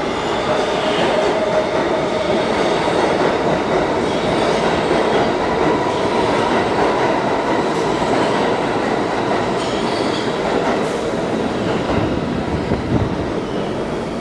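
New York City subway train running at speed, a steady loud rumble and rattle heard from inside the car, with a faint whine of the wheels.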